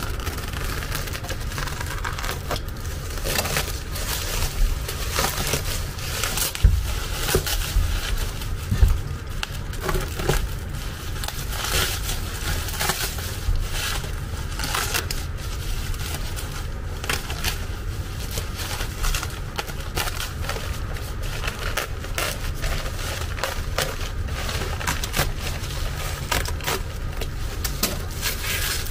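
Bubble wrap and plastic stretch film crinkling and rustling as a parcel's wrapping is cut and pulled open by hand, in quick irregular crackles. There are a couple of louder knocks about seven and nine seconds in, over a steady low hum.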